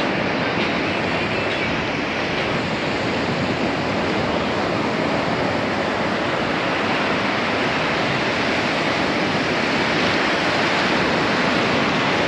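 Ocean surf breaking and washing up over the sand at the shoreline, a steady unbroken rush of water.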